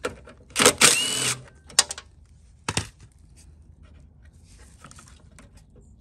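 DeWalt 20V cordless driver spins a socket in one short burst of under a second, backing out a carburetor mounting bolt on a small mower engine. A few sharp metal clicks follow as the carburetor is handled, then faint rustling.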